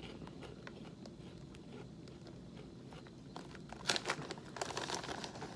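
A foil snack bag crinkling as a hand reaches into it, a flurry of sharp crackles starting about four seconds in after a quiet stretch.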